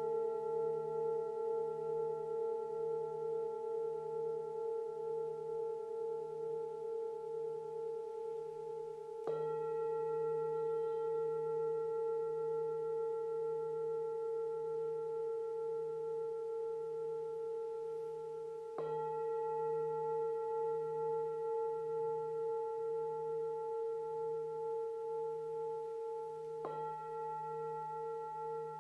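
Metal singing bowl struck with a mallet three times, about nine seconds apart. Each strike leaves a long, steady ringing tone with a slow pulsing wobble in its low hum.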